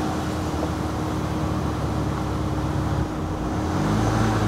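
Van engine running steadily, dipping briefly about three seconds in and then revving up again.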